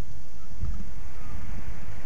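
Wind buffeting the nest-box webcam's microphone: a steady low rumble.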